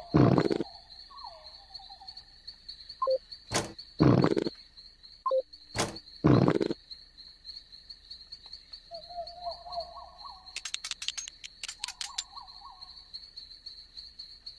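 A steady, pulsing high-pitched insect trill runs throughout, with short lower animal calls between. Three loud thumps break in, one at the start, one about four seconds in and one about six seconds in, and a quick run of clicks comes near the end.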